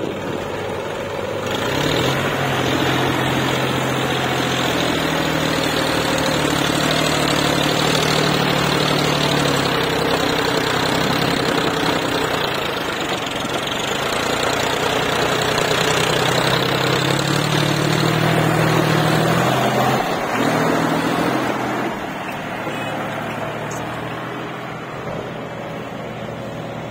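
John Deere tractor's diesel engine pulling a trailer loaded with soil. The engine gets loud about two seconds in, its note climbs about two-thirds of the way through, and then it fades as the tractor drives off.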